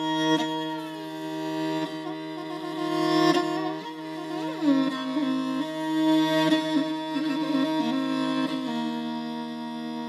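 Morin khuur (Mongolian horsehead fiddle) bowed solo: a steady drone held under a melody that slides and ornaments between notes, with a quick swoop up and back down about four and a half seconds in.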